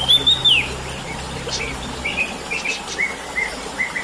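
Orange-headed thrush singing: a few loud arched whistled notes at the start, then a run of short, quick chirping notes.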